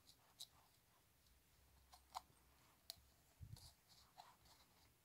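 Near silence, with a few faint clicks and a soft thump as a rubber band is worked around the rim of a tweeter's metal mesh grille.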